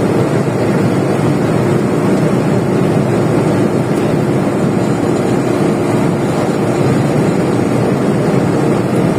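Steady drone of a truck cruising at road speed: engine, tyre and wind noise as heard from the cab, holding an even level throughout.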